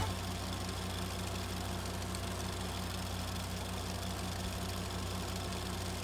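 Steady low hum with a fast, even pulse, mechanical in character, at a low level.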